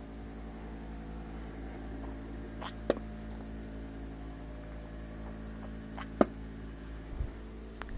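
Steady electrical hum with a couple of faint clicks, one about three seconds in and another about six seconds in.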